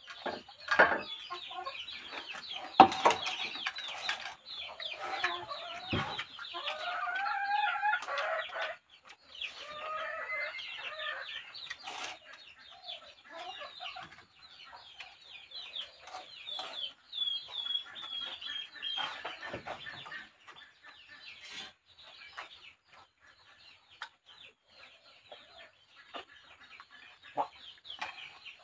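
Chickens clucking and calling, busiest in the first third, with a held high call a little past the middle, over scattered small clicks and taps.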